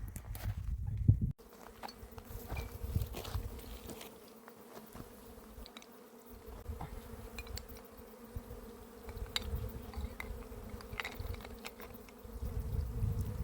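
A flying insect buzzing with a steady hum, beginning after a sudden cut about a second in, with a few faint clicks over it.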